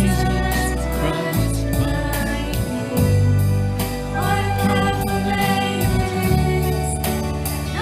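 A small worship band, with drum kit, electric and acoustic guitars, keyboard and flute, playing a contemporary worship song over a steady drum beat, with singing.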